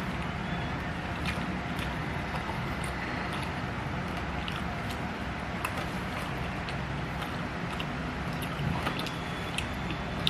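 Scattered small wet clicks and smacks of chewing, close to the microphone, over a steady low rumble of background noise.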